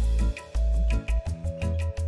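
Background music with a steady beat: deep sustained bass notes, held melodic tones and regular light percussion ticks.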